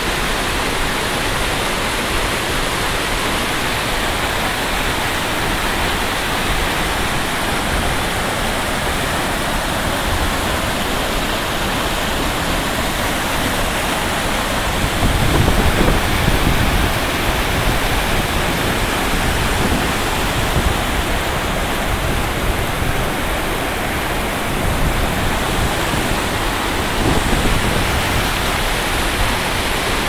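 Steady rushing of a tall waterfall and the stream pouring over the rocks below it, swelling louder for a couple of seconds about halfway through as close rapids come near.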